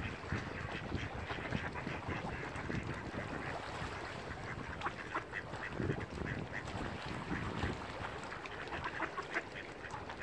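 Mallard ducks quacking repeatedly in short calls over a low, uneven rumble.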